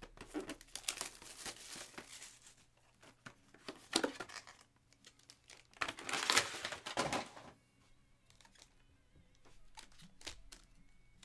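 Wrapped trading-card packs crinkling as they are handled and shuffled by hand, in several bursts, the loudest about two-thirds of the way through. Light taps and clicks near the end as packs are set down on the table.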